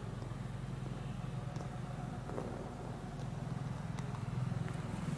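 A steady low mechanical hum, faint and unchanging, with a few faint ticks over it.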